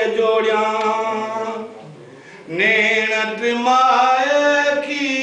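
A man singing a Sindhi geet unaccompanied, in long held notes that bend up and down, with a short break about two seconds in before the voice rises back in.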